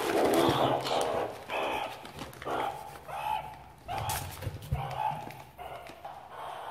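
Meerkats scrabbling through crinkling plastic bags in a cardboard box, with short animal calls repeated about once or twice a second.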